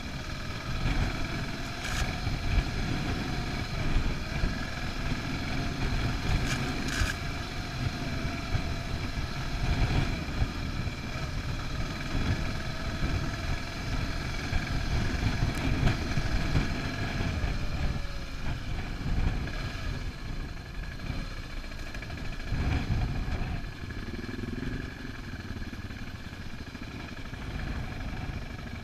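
Single-cylinder 650 dual-sport motorcycle engine running at a fairly steady speed on a sandy dirt track, heard from the bike itself, over a heavy low rumble of wind and track. A few sharp knocks come from bumps along the way.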